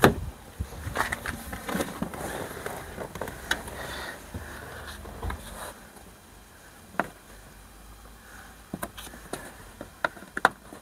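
A sharp click at the Range Rover Sport's driver's door at the start, then scattered light clicks, taps and rustling from hands and a small tool working at the trim around the top of the windscreen inside the cabin.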